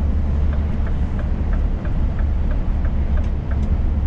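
Steady low drone of a Scania S500 truck cruising at highway speed, heard inside the cab. A run of faint light ticks comes about three a second.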